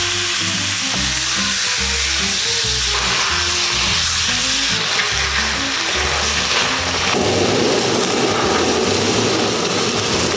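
Thin-sliced pork sizzling and frying in a hot nonstick wok as it is stirred, over background music. From about seven seconds in a louder steady rush joins, a kitchen blowtorch flaming the meat to give it a smoky fire taste.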